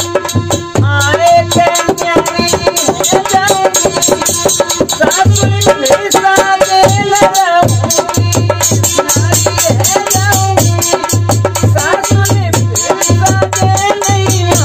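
Harmonium and dholak playing a fast folk accompaniment: held harmonium chords and a melody line over quick, busy drum strokes with regular deep bass beats.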